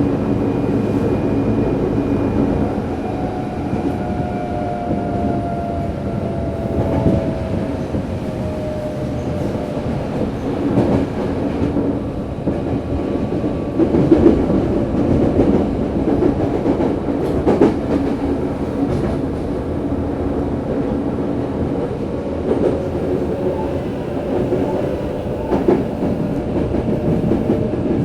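Running sound heard inside a Tokyo Metro 03 series subway car with a VVVF-refitted IGBT inverter drive: a steady low rumble of wheels on rail. A faint whine slides down in pitch over the first several seconds, and sharp clicks come from the wheels crossing rail joints.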